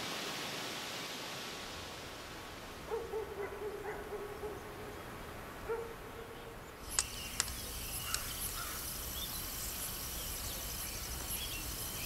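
Quiet outdoor ambience. A soft hiss fades over the first two seconds, and a couple of short, steady low tones follow. About seven seconds in, a high, steady insect trill starts up, with a few sharp clicks.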